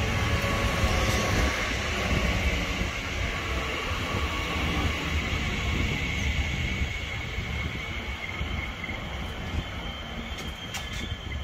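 Passenger train running through a station: a steady rumble of wheels on rails with a thin high squeal over it, slowly growing quieter.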